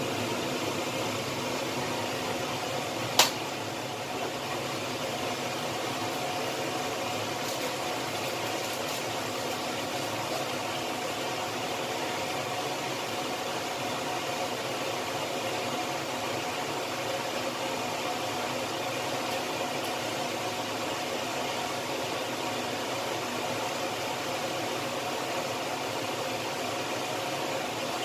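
Steady whirring hiss of the stove running under a wok of heating oil, with one sharp click about three seconds in.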